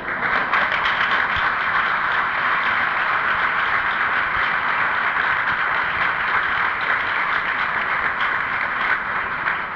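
Audience applauding: dense clapping that starts all at once, holds steady for several seconds and eases off near the end.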